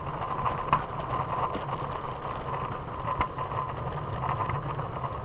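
Trikke scooter's small wheels rolling over pavement: a steady, muffled rumble heard from inside a pocket, with scattered clicks and one sharper knock about three seconds in.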